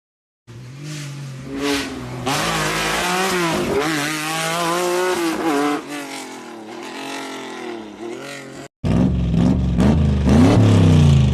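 Historic rally car engine revving hard, its pitch climbing and dropping several times through gear changes. After a sudden cut about nine seconds in, a second rally car engine runs louder and deeper.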